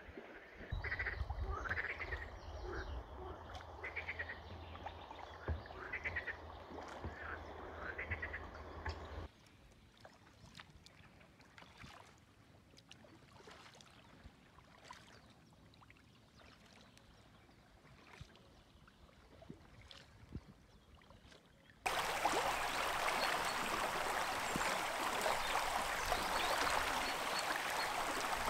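Frogs croaking in repeated short calls over a low rumble, which stop suddenly about a third of the way in and give way to a much quieter stretch with faint scattered clicks. Near the end a steady, louder rush of flowing water sets in abruptly.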